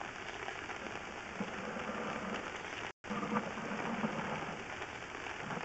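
Steady crackling and scraping of a sewer inspection camera and its push rod being pushed through a cast iron sewer line, the head bouncing over corrosion scale. The sound cuts out for a moment about three seconds in.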